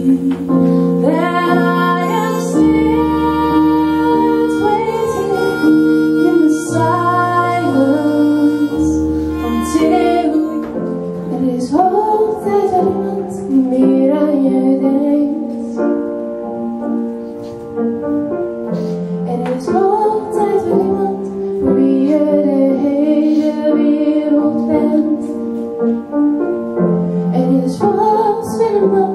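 A woman singing live with keyboard accompaniment and held bass notes. About ten seconds in, the music changes to another song: a woman sings over piano chords.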